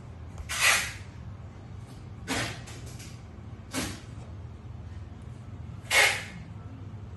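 Four short hissing swishes about a second and a half apart, the first and last the loudest, over a steady low hum.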